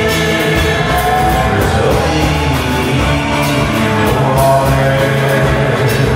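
Live country-roots band music: acoustic guitar, upright bass and drums playing, with a steady beat on the cymbals.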